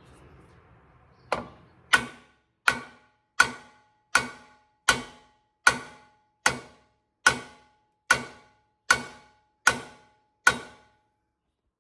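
About a dozen steady hammer blows, roughly one every three-quarters of a second, each ringing metallically as they drive a steel pin into the attachment indicator mechanism of a Case TR310B.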